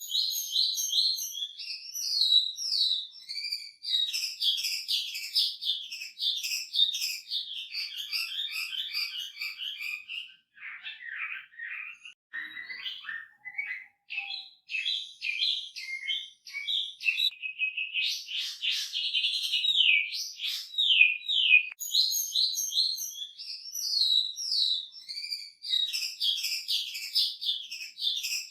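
Chinese hwamei singing a long, loud, varied song of fast repeated whistled notes and trills, rich in mimicked phrases. It thins out briefly about ten seconds in, then resumes.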